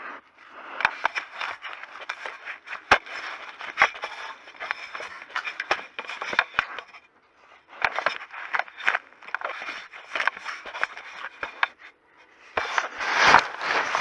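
Close scraping, crackling and knocking on the trail camera's casing, sudden clicks over a rough scrape, with two short breaks. It swells loudest near the end: an animal is pawing and moving the camera. The uploader blames a black bear cub.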